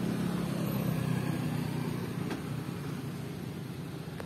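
Toyota Avanza engine idling as the car creeps slowly in reverse, a steady low hum that fades a little.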